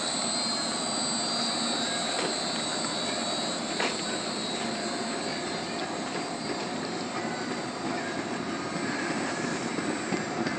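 Vivian Conveyors mobile belt conveyor running steadily under load, its electric motor drive and rubber belt making a continuous mechanical noise with a thin high whine. A single knock about four seconds in.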